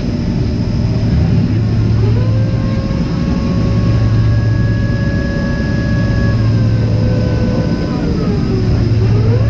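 Boeing 767 cabin noise with its jet engines running: a steady low rumble and an engine whine that comes up about two seconds in, holds a steady pitch, then sags and climbs again near the end as the thrust changes.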